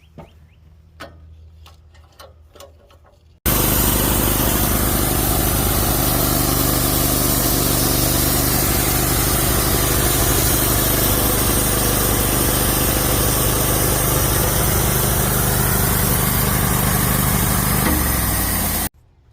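A few faint knocks, then about three and a half seconds in a Wood-Mizer LT15 Wide portable band sawmill is suddenly heard running loud and steady, engine and band blade together. Near the end its pitch steps down, and then the sound cuts off abruptly.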